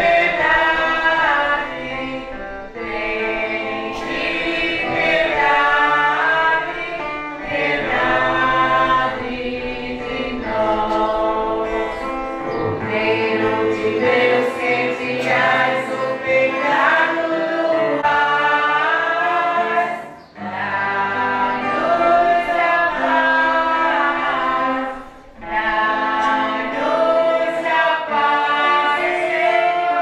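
A choir singing a church hymn, voices holding and moving between sustained notes, with brief pauses between phrases about 20 and 25 seconds in.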